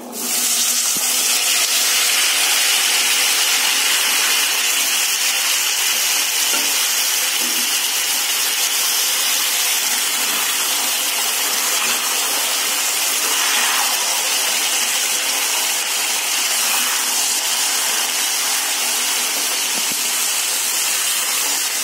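Pressure-cooked chickpeas frying in hot oil in a pan: a loud, steady sizzle that begins suddenly as they go into the oil.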